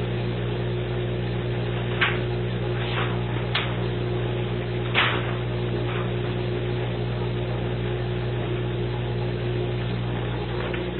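Viking Professional 301 dishwasher running with a steady, loud hum made of several low tones, a sound its owner considers abnormally loud and the maker calls normal. A few brief sharp sounds come through between about two and six seconds in.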